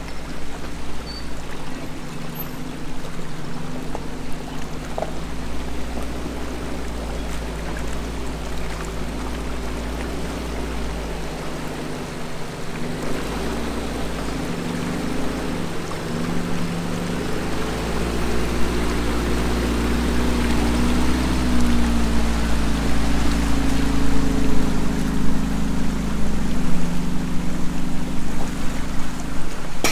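River water rushing steadily over a shallow ford, with the engines of lifted Suzuki SJ-series 4x4s running and changing revs as they crawl down the bank and through the water. The engines grow louder in the second half.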